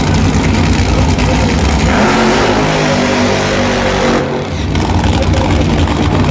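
Drag-racing funny car's engine held at full throttle during a burnout, very loud, its pitch climbing through the middle. A little after four seconds the throttle comes off and the engine falls to a lower-pitched idle.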